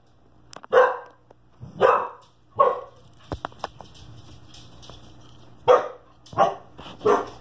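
A dog barking: three barks in the first few seconds, a pause of about three seconds, then three more barks near the end. A few light clicks fall in the pause.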